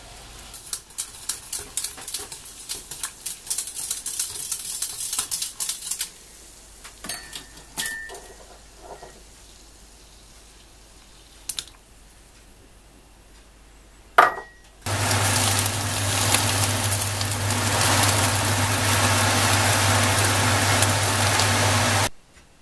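Liquid poured from a plastic bottle into a pot of steaming water on an electric hob, crackling and ticking for several seconds. After a quieter stretch with a few sharp clinks, a loud steady rushing noise with a low hum sets in about fifteen seconds in and cuts off suddenly about seven seconds later.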